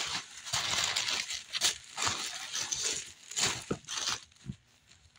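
Tissue paper rustling and crinkling as hands pull it open, in irregular bursts that die down near the end.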